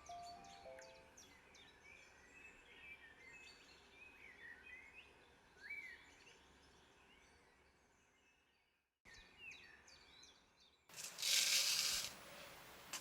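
Small songbirds chirping and tweeting in quick, pitch-sliding calls, fading out about two-thirds of the way through and returning briefly, then a short loud rushing hiss near the end.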